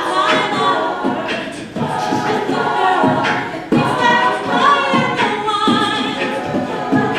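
A cappella vocal group singing in harmony, several voices together with no instruments.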